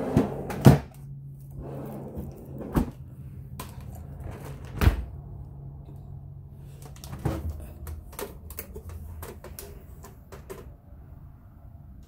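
A stainless French-door refrigerator being handled: its bottom freezer drawer pushed shut and the fridge doors opened, giving several knocks and thumps and then a run of light clicks.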